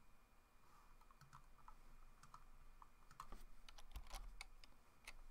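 Faint computer keyboard clicks, scattered at first and coming quicker and more often about halfway through.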